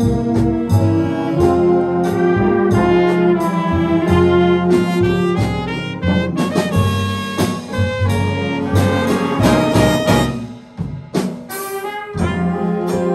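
Jazz big band playing: saxophones, trumpets and trombones over a rhythm section with electric guitar and piano. The ensemble thins out briefly a little over ten seconds in, then comes back in full.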